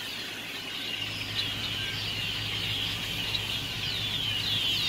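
A huge flock of blackbirds calling all at once, a dense, continuous chatter of many short, high chirps.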